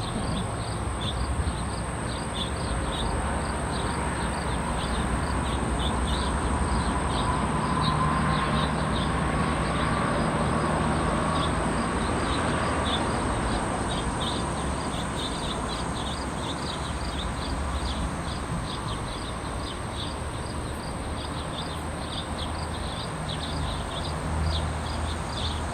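Crickets chirping in rapid, evenly spaced pulses over a steady high insect drone, with a low outdoor rumble that swells and fades in the middle.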